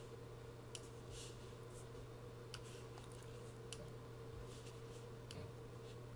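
Faint, scattered computer mouse clicks, several sharp single clicks a second or so apart, over a steady low hum.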